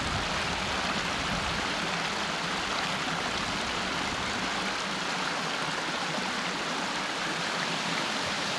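A stream of rushing water, running steadily and evenly.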